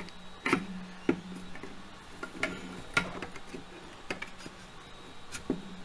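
Scattered light clicks and knocks, about six over a few seconds, as the upper receiver and handguard rail of a MilSig M5 paintball marker are handled during a barrel block swap, with a faint steady hum underneath.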